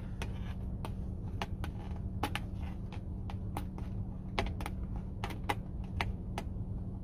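Light, sharp clicks and taps at irregular spacing, a few a second, over a steady low hum.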